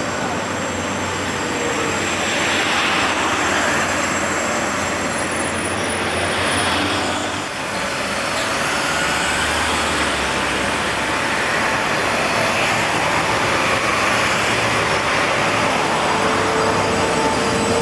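Articulated street tram running along street track: the steady rumble and rail noise of the car, mixed with road traffic. There is a brief break about seven and a half seconds in, then a second tram of the same type approaches and passes close by, with a faint rising tone near the end.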